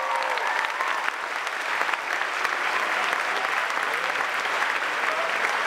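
Large audience applauding and cheering, a dense steady clapping with a few shouted whoops near the start and again near the end.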